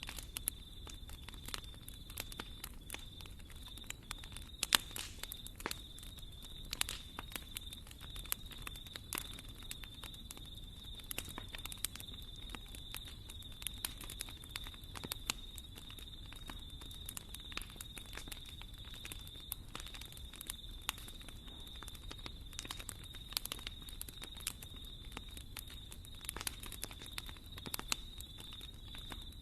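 Wood fire in a fireplace crackling, with frequent irregular sharp pops over a steady low rumble and a thin steady high hiss.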